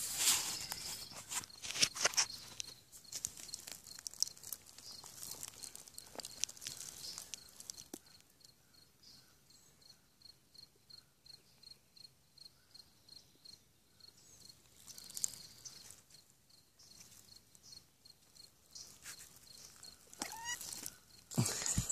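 An insect chirping steadily and high-pitched, about three chirps a second, with short rustles and scuffs in dry leaf litter, loudest near the start.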